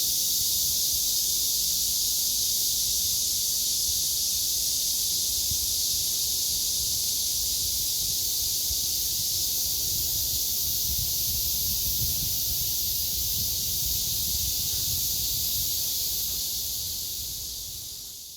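Cicadas droning in a steady, continuous high-pitched chorus, fading out near the end.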